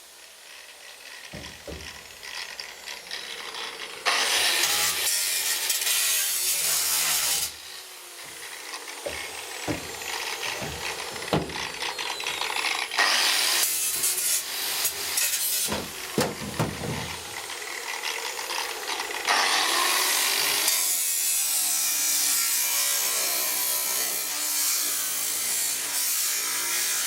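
Nine-inch angle grinder cutting through car body sheet metal, a loud harsh grinding hiss in long bursts that start and stop abruptly. A few clanks fall in the quieter gaps between cuts.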